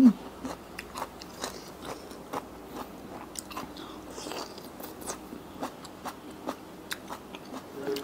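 Close-miked chewing of spicy Thai seafood salad: irregular wet clicks and soft crunches from the mouth, a few each second.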